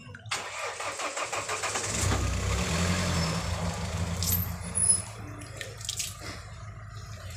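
A motor vehicle's engine on the road, building over the first two seconds, loudest for a few seconds and fading after about five seconds.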